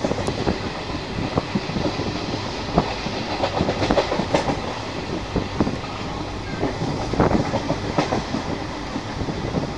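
Indian Railways passenger train running, heard from inside the coach at the window: a steady rumble with many irregular clacks and knocks from the wheels on the track.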